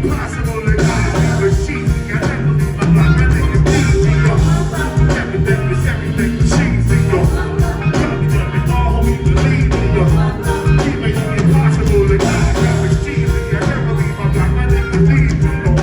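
Music with a steady beat, a heavy bass line and guitar.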